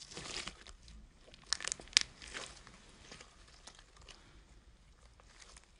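Clear slime full of small foam balls being squeezed and folded by hand, crackling and crunching with small pops. The crackles are busiest in the first two and a half seconds, with a sharp click about two seconds in.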